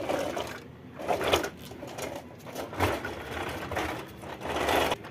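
Toy goods-carrier truck loaded with plastic toys being pushed across a concrete floor, its wheels making a gritty rolling and scraping noise in about five uneven surges.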